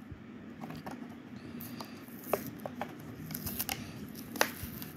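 Clear plastic blister of a die-cast toy car package crackling and clicking as it is pried and peeled off its cardboard backing card, with two sharper cracks about two and a half and four and a half seconds in.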